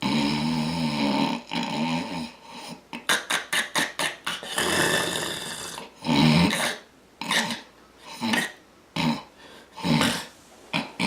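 A man snoring loudly: a series of uneven, rough snores, with a fast fluttering rattle about three seconds in.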